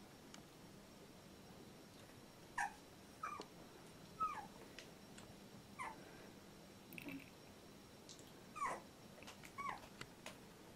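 Two-week-old black Labrador retriever puppy whimpering: about seven short, high squeaky cries, several falling in pitch, spaced roughly a second apart and starting about two and a half seconds in.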